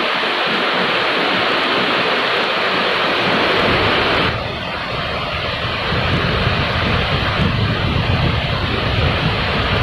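Steady rain falling, a dense even hiss. About four seconds in the hiss drops off suddenly and a low rumble comes up under the lighter rain sound.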